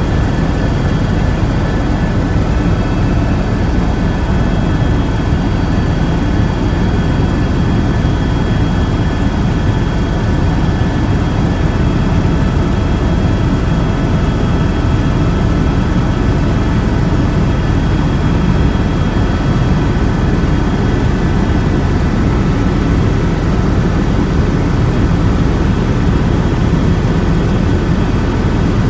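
Steady, loud engine drone with a few constant whining tones above it, unchanging throughout.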